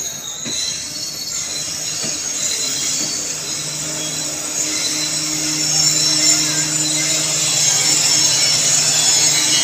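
Passenger train rolling along the rails with its wheels squealing: a high-pitched screech that grows louder. A low steady hum joins about three and a half seconds in.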